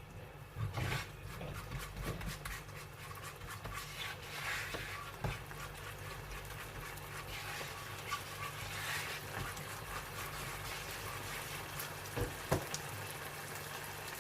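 Flour being roasted in butter in a pan and stirred with a spoon: soft scraping and frying sizzle, with a few sharp knocks of the spoon on the pan, the loudest a pair near the end, over a steady low hum.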